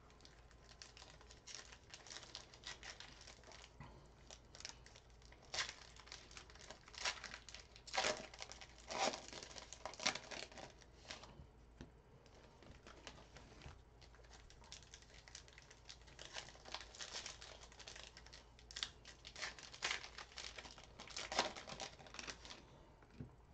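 Trading card packs being opened: soft, irregular crinkling and tearing of the pack wrappers, with a handful of louder crackles.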